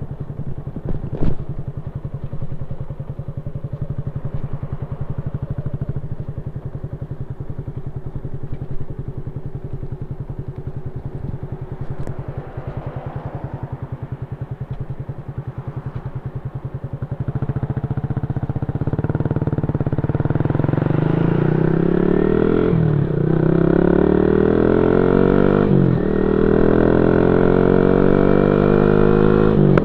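Yamaha Y15ZR's 150 cc single-cylinder four-stroke engine running through a YYPANG aftermarket exhaust. It first chugs along at low revs, then accelerates hard from a little past halfway: the revs climb, drop back at two upshifts, and climb again.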